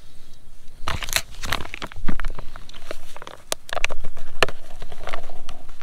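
Plastic packet of amprolium (Corid) powder crinkling and crackling irregularly as the powder is measured out into a glass measuring cup.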